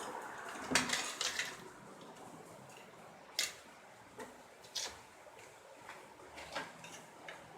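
Light, sharp clinks and taps of hard louver-window parts being handled and set down: a quick cluster about a second in, then single knocks roughly every second.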